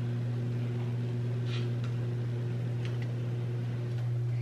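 A steady low electrical hum, unchanged throughout, with a couple of faint light ticks about a second and a half in.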